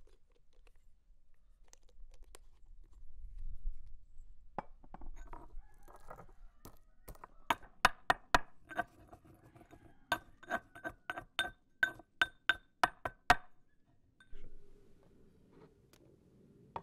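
A kitchen utensil clinking against a dish that rings after each strike. The strikes are few at first from about four and a half seconds in, then come at about two sharp strikes a second, and stop a few seconds before the end.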